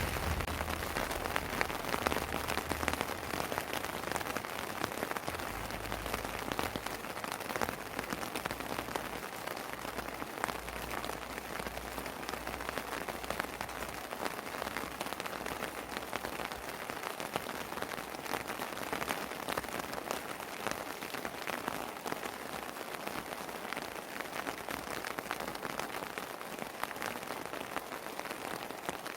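Steady rain falling: an even hiss dense with individual drops ticking.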